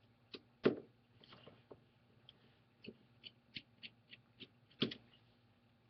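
Small precision screwdriver clicking and ticking against a tiny Phillips screw and the tablet's metal frame as the screw is worked out, with two louder knocks, one near the start and one near the end.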